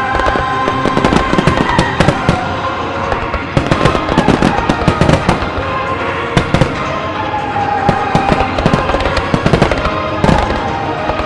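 A Japanese music starmine: a rapid barrage of aerial firework shells bursting, several sharp reports a second with crackling between, over accompanying music.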